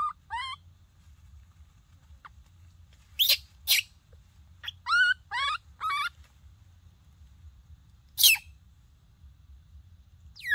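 Baby monkey crying: short, high-pitched calls in bursts of two or three, some sweeping sharply down from a shrill squeal.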